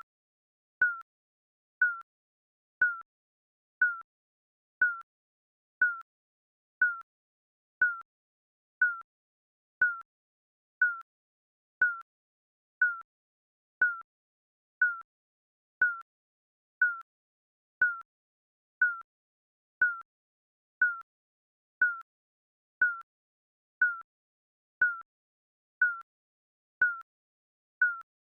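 Digital countdown timer beeping: one short electronic beep every second, each identical, with silence between.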